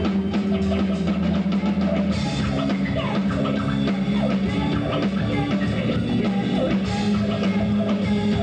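A live rock band playing, with bass guitar and drum kit.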